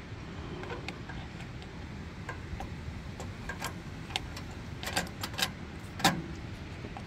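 Scattered light clicks and knocks of a hard plastic air cleaner base being pushed and seated onto the carburetor studs of a Predator 212 engine, with a quick run of clicks about five seconds in and the loudest knock about a second before the end, over a steady low background rumble.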